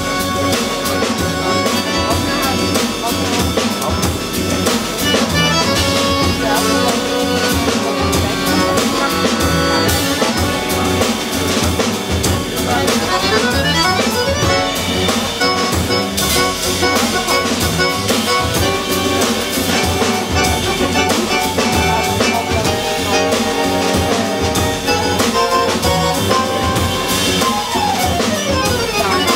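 Live quartet of violin, accordion, double bass and drum kit playing jazz-tinged klezmer, drums prominent. A note slides upward about halfway through and another slides down near the end.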